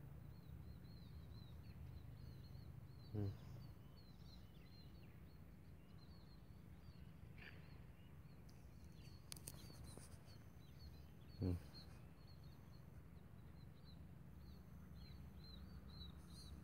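Faint outdoor ambience of small birds chirping, short high calls repeated steadily over a low background hum. Two brief, louder low sounds break in, about three seconds in and again around eleven seconds.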